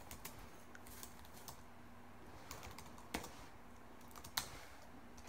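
Typing on a laptop keyboard: soft, scattered keystrokes, with two louder key strikes about three and four and a half seconds in.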